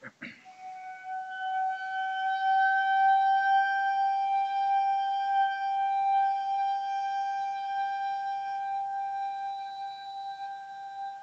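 Shakuhachi bamboo flute playing one long, steady held note. The note comes in sharply about half a second in and holds its pitch throughout.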